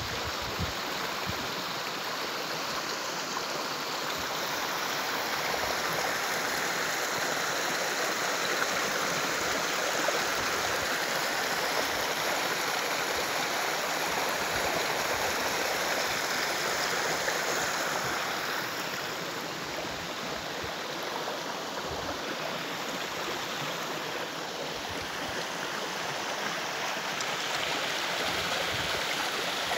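Shallow creek running over stones and pebbles: a steady rushing, babbling flow, a little softer for a few seconds past the middle.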